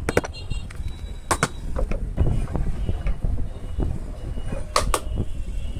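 A few sharp clicks and knocks, the loudest pair near the end, over a steady low rumble of background noise.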